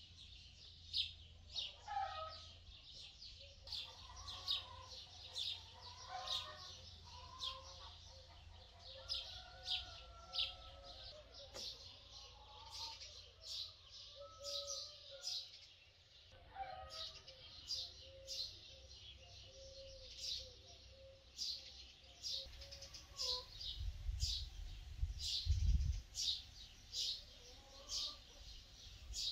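Small birds chirping over and over, short high chirps about once or twice a second, with lower wavering bird calls in between. A low rumble comes up near the end.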